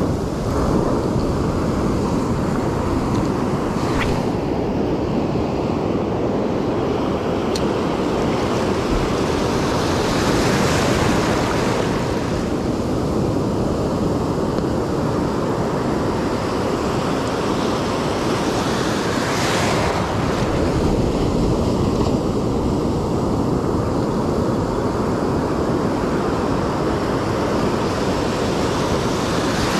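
Ocean surf washing and breaking in the shallows, with wind buffeting the microphone. The wash swells louder twice, about a third and two-thirds of the way through.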